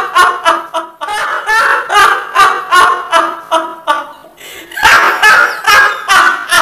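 A man laughing loudly and at length: a string of forceful "ha" bursts, about two to three a second, easing briefly about four seconds in before picking up again.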